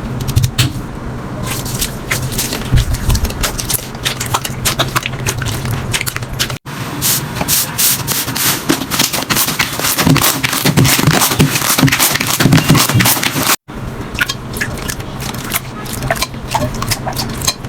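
Slime being squeezed and poked by hand, with dense sticky clicking and popping. It breaks off briefly twice, about a third and two thirds of the way through, as one slime clip cuts to the next.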